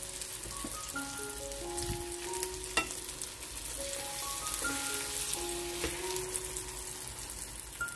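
Flour-dredged sole fillets sizzling and crackling in foaming butter in a stainless steel pan, with one sharp tap about three seconds in as a wooden spatula works the fish. A light background melody of short plucked notes plays over it.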